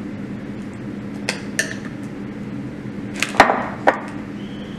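A glass jar set down on a granite countertop, a couple of light clicks and then a cluster of sharp knocks about three seconds in, with one more knock shortly after, over a steady low hum.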